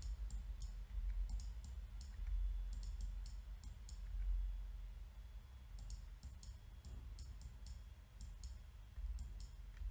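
Computer mouse button clicking in scattered small clusters of a few quick clicks, over a faint steady low hum.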